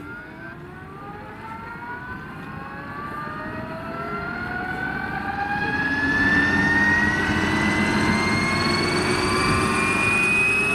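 Scale model Boeing Vertol CH-113 Labrador twin-rotor helicopter, driven by a single Kontronik electric motor, spooling up on the ground: a whine that rises steadily in pitch as the rotors speed up. It grows louder for about six seconds, then holds level while the pitch keeps climbing, with the whoosh of the rotor blades underneath.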